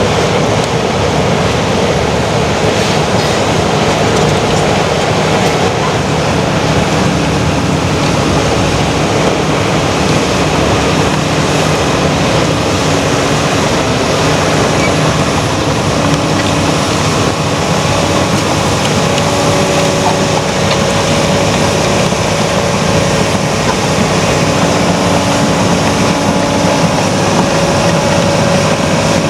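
Heavy tracked earthmoving machines at work: diesel engines running steadily under load, with a thin steady whine appearing about halfway through.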